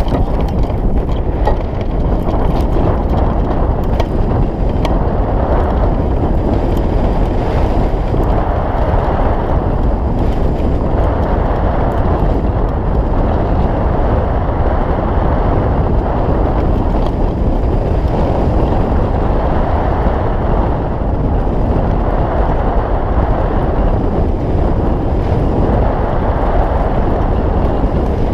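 Wind buffeting the microphone of a camera mounted on a hang glider during launch and flight: a loud, steady, low rush with no break.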